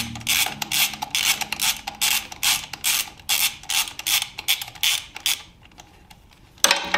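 Hand ratchet wrench clicking in quick short strokes, about three a second, while a screw is backed out to remove a motorcycle speed sensor. The clicking stops about five seconds in.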